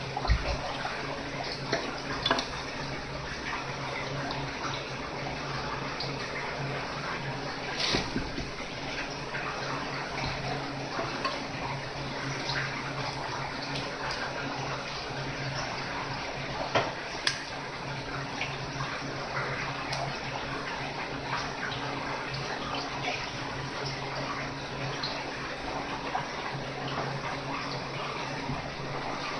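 Steady rush of water running from a tap, with a few sharp knocks and clicks from handling the fish and tools on the cutting board.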